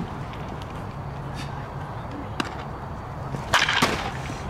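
Baseball bat striking a pitched ball in a batting cage: two sharp cracks close together about three and a half seconds in, with a fainter click or two earlier.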